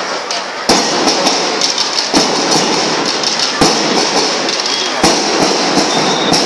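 School marching band (band melam) playing drums and cymbals: a dense stream of rapid drum strokes with a bright cymbal wash, and a heavier stroke about every second and a half.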